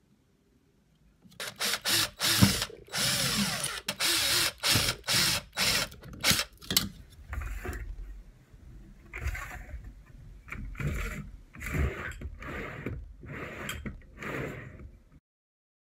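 Wooden blocks sliding back and forth on a homemade jig's metal screen-window-frame rails, a scraping rattle in many quick repeated strokes that stops suddenly near the end.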